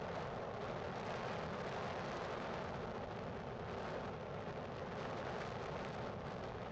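Steady rushing noise of wind on the microphone, an even hiss with no distinct events.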